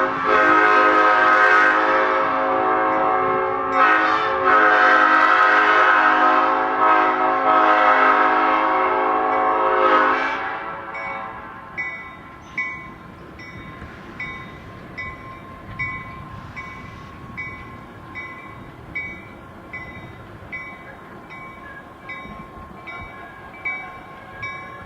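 Nathan P5 five-chime air horn sounding a full chord in a long blast, with short breaks about four and seven seconds in, then cutting off about ten seconds in. After that only a fainter background with a light ticking about one and a half times a second remains.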